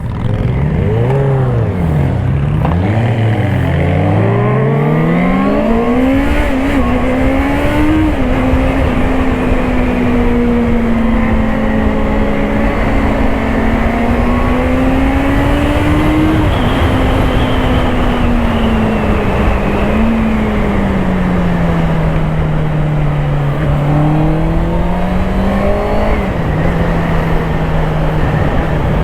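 Honda CBR650R's inline-four engine pulling away and shifting up through the gears in quick rising sweeps, then running at a steady cruise with gentle rises and falls in revs, under heavy wind rumble on the helmet microphone.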